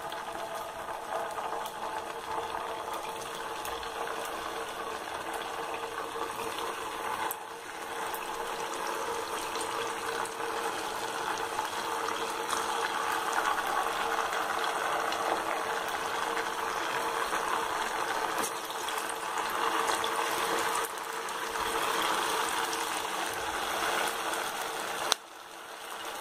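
Potato pieces deep-frying in hot oil in a kadai: a steady sizzling crackle of bubbling oil that grows fuller about halfway through and dips briefly near the end.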